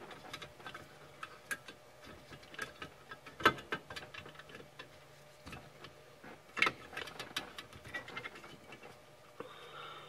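Scattered small clicks, taps and scrapes of metal and plastic lumbar-support parts being worked into a truck seat's back frame by hand, with two sharper clicks about three and a half and six and a half seconds in.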